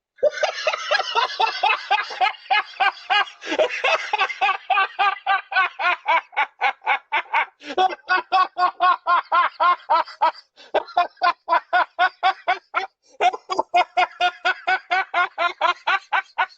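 A person laughing hard and at length, a fast run of 'ha' pulses about six a second that breaks off briefly a few times.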